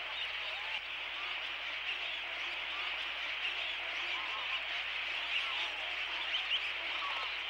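A dense, steady chorus of many water birds calling together on a mudflat, with many short calls overlapping.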